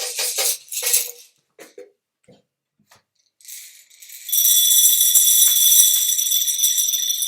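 Dried chickpeas rattling in a container: a short shake that stops about a second in, a pause with a few faint clicks, then from about halfway a loud, steady continuous rattle with a faint metallic ring over it.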